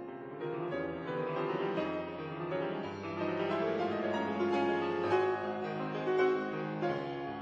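Background music, a piano-led instrumental.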